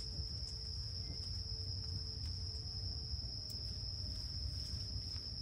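Crickets trilling, one steady unbroken high-pitched note, over a low rumble, with a few faint ticks of tomato vines being handled.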